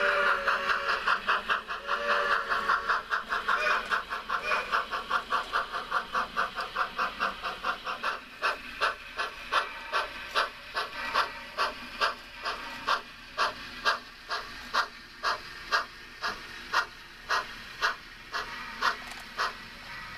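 Sound-equipped model of Yosemite Valley Railway 1922 Baldwin 2-6-0 #29 chuffing, its exhaust beats quick at first and spreading out to about two a second as the locomotive slows.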